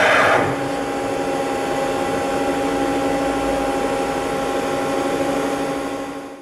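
Hydraulic press brake (Accurpress 76010) running with a steady, multi-toned hum from its hydraulic pump. A louder rush of hydraulic noise as the ram comes down dies away about half a second in, and the hum fades out at the end.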